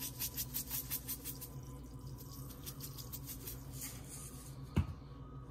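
Garlic salt being shaken from a spice shaker onto peanuts in a pot: quick, rhythmic shakes, about five a second, for the first second and a half, over a steady low hum. A single thump near the end.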